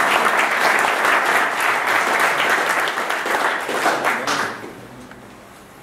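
Audience applauding, the clapping fading away about four and a half seconds in.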